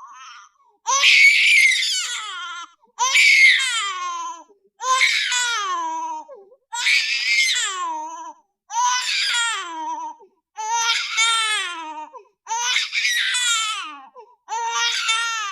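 Baby crying in a run of eight wailing cries, one about every two seconds, each falling in pitch and breaking off into a short gap before the next.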